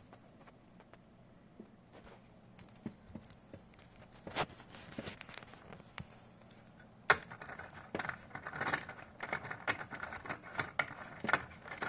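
Handling noise: scattered small clicks and taps, growing into a busier run of clicks and rubbing from about seven seconds in.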